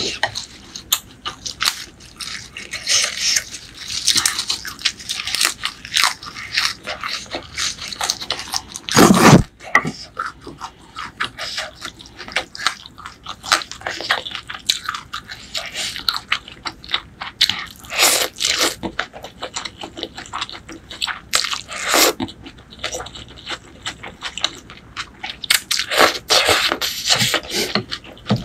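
Close-miked chewing of Thai pork noodle soup with fishballs: many quick, wet mouth clicks and crunches. About nine seconds in comes one loud, low thump.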